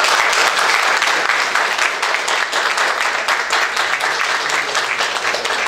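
Audience applauding: many hands clapping together, loud and steady.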